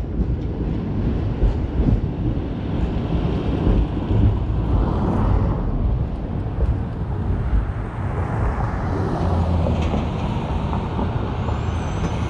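Heritage streetcar running on street track, heard from on board: a steady low rumble of wheels and running gear with traffic noise around it.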